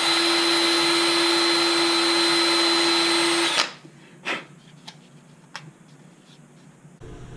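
Cordless drill running at a steady speed as it drills a hole in a small handheld part. It stops abruptly about three and a half seconds in, and a single click follows.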